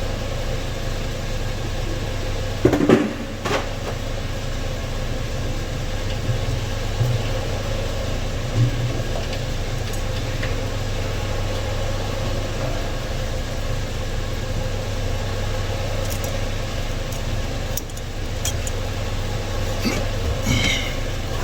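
Steady low mechanical hum, with a brief clatter about three seconds in.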